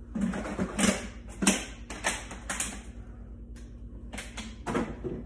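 Takeout food packaging being handled and dropped into a plastic recycling bin: a quick run of crinkles and light clatters over the first few seconds, then a few more near the end.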